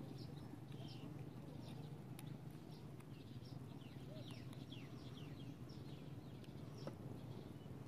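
Birds chirping: many short, quick falling chirps, some overlapping, over a steady low hum, with a single click near the end.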